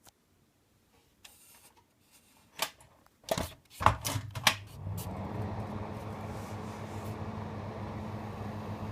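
1976 Mitsubishi E-20RG3 ventilation fan being switched on: several clicks and clacks, then the motor spins up over about a second and runs steadily with a hum and an even rush of air.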